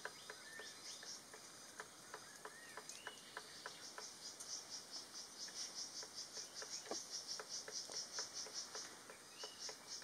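Faint irregular tapping, about two or three sharp taps a second, of a white-browed piculet pecking inside its bamboo nest hollow. A rapid, high pulsed insect chirping runs alongside.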